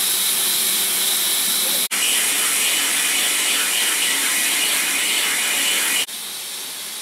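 Steam locomotive letting off steam: a steady, loud hiss that breaks off for an instant just before two seconds in and drops quieter about six seconds in.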